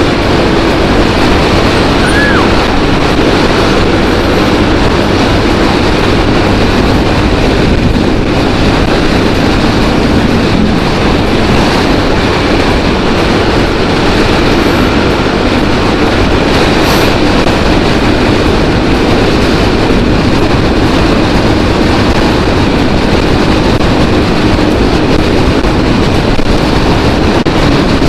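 Steady, loud wind and road noise from riding at highway speed on a motorcycle, with a constant low engine drone underneath.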